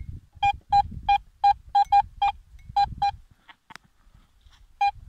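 Metal detector giving a quick run of short, identical beeps as its coil passes over a buried metal target, then two more beeps near the end after a pause.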